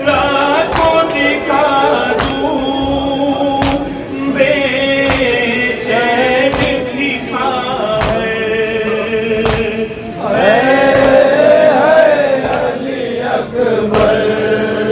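A male reciter chants a noha (Shia lament) into a microphone, with other men's voices joining in. Sharp chest-beating (matam) thumps keep a steady beat about every second and a half.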